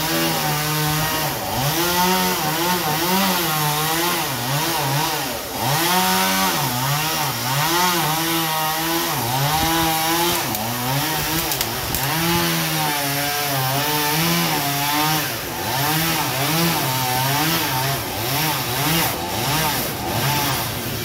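Chainsaw cutting through a ketapang kencana trunk, the engine's pitch rising and dropping over and over as the chain bites into the wood and frees again.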